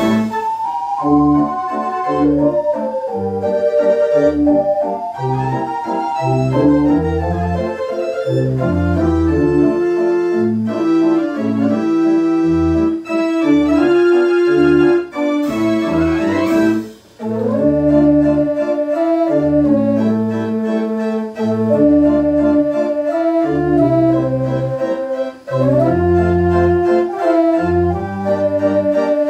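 The 1904 J. Bursens dance organ "Het Kind" playing a tune on its pipes, a melody of held notes over a rhythmic, pulsing bass and accompaniment. The music breaks off briefly about seventeen seconds in, then carries on.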